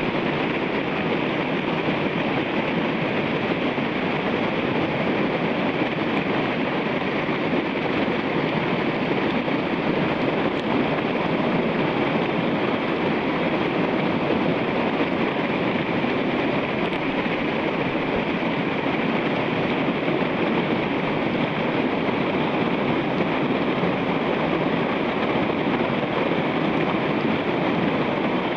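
Whitewater rapids rushing steadily: a loud, even wash of churning river water.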